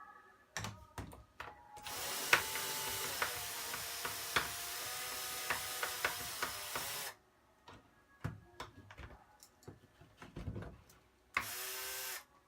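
Electric drill with a Phillips bit driving out small laptop screen screws: one steady run of about five seconds, then clicks from handling the screws and bit, then a short run near the end that winds down as it stops.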